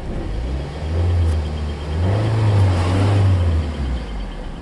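A car's engine and road noise heard from inside the cabin while driving, with a deep drone that swells about a second in and again from about two to three and a half seconds as the engine pulls harder.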